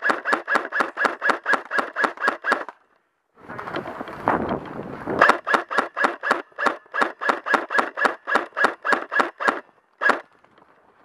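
Airsoft gun firing long strings of shots, about six or seven a second, each shot a sharp click with a short ringing tone. Two strings are broken by a pause of about two and a half seconds, and a single last shot comes near the end.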